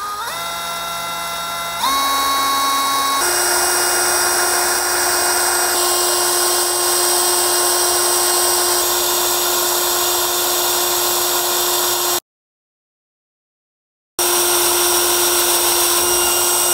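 Cordless drill in its low gear at full trigger, boring a pilot hole into a steel grill guard tube. The motor whine steps up in pitch over the first three seconds, then holds steady under the rough hiss of the bit cutting the steel. The sound cuts out for about two seconds near the end and then resumes.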